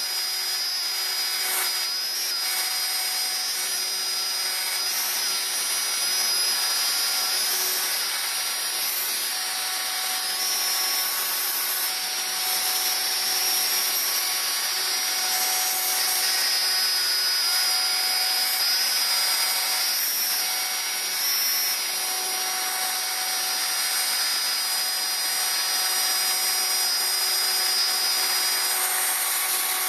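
CNC router's spindle running at a steady high whine while its small end mill cuts a logo outline into plywood. Fainter tones come and go throughout as the machine moves.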